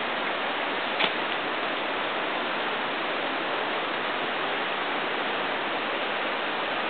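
Steady rush of river water running. There is a single short tap about a second in.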